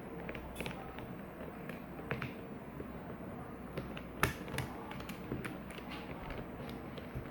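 Plastic puzzle-cube pieces being handled and pressed into place: scattered small clicks and taps, with one sharper click about four seconds in.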